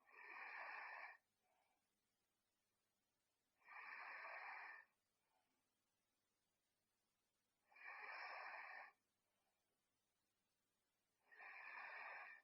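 A sleeping girl snoring softly: four breathy snores, one about every three and a half to four seconds, each lasting about a second, with a much fainter short sound after each.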